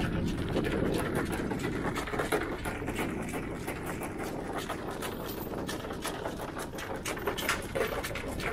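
Anchor windlass hauling in the anchor chain: a steady mechanical run with many small clicks of chain links.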